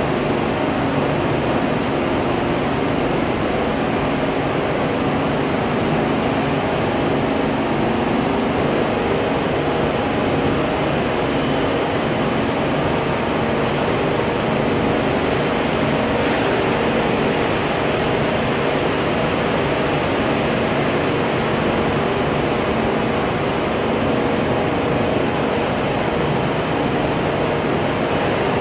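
Steady industrial machinery noise: a constant rushing hiss over a hum of several low tones, with no change in level.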